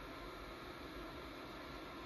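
Hot air rework gun blowing a steady hiss of hot air onto a circuit board to melt the solder under a small part being lifted off.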